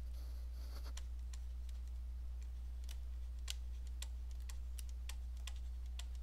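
Stylus pen tapping on a tablet screen during handwriting: a dozen or so light, irregular clicks over a steady low hum.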